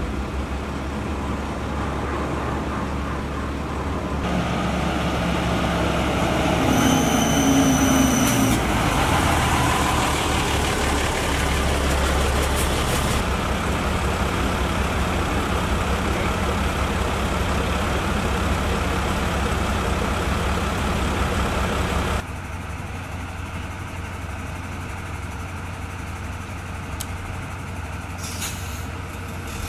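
Idling engines of parked emergency vehicles, a steady low hum that grows louder about four seconds in and drops abruptly after about twenty-two seconds. A brief high-pitched tone sounds at about seven seconds.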